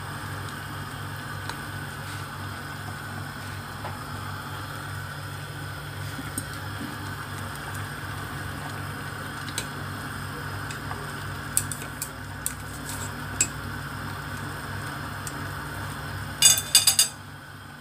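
Choy sum blanching in a stainless steel pot of simmering water on the stove, over a steady low hum. Scattered light clicks of chopsticks against the pot come in the second half, and a brief clatter, the loudest sound, about a second before the end.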